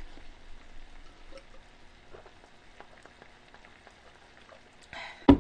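A faint, steady crackling hiss with scattered small ticks, much like fizz or sizzling. About five seconds in comes a single sharp knock, like a glass set down on a table.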